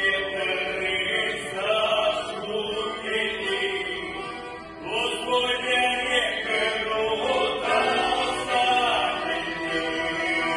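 Men's folk choir singing together on stage, a long sung phrase, a short breath about halfway, then the next phrase.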